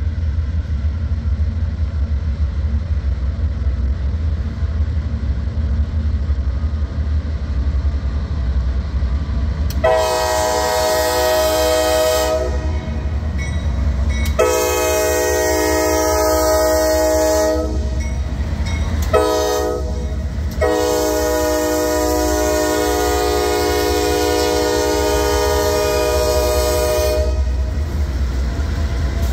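Norfolk Southern diesel freight locomotives rumbling steadily as they approach and pass. About ten seconds in, the lead locomotive's air horn sounds the grade-crossing signal: two long blasts, a short one, then a final long blast.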